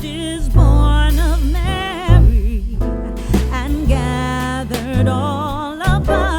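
Background song: a singer holding notes with vibrato over bass and instrumental accompaniment.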